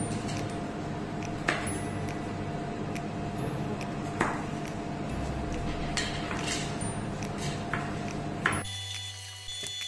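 Chef's knife slicing carrots on a plastic cutting board: a handful of sharp knocks of the blade on the board, spaced irregularly, over a steady background hum that cuts off near the end.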